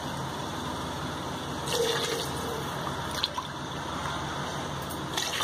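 Steady watery rushing from water in an electric rice cooker pot, just added to the fried masala for pulav, with a few faint clicks.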